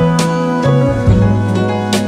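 Background music: a guitar playing a slow melody of plucked notes.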